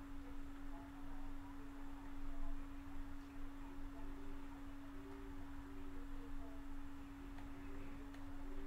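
A steady low tone held unbroken at one pitch, over faint background noise.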